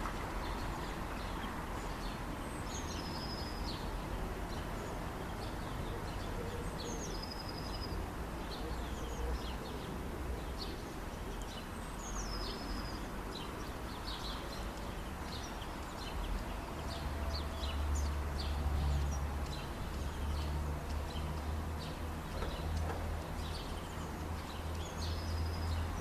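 Birds calling: one bird repeats a short high call about every four to five seconds among scattered fainter chirps, over a steady low rumble that grows louder in the second half.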